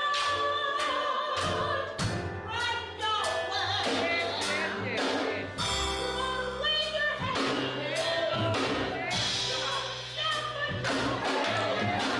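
Gospel song: singing over a band with bass and a drum beat.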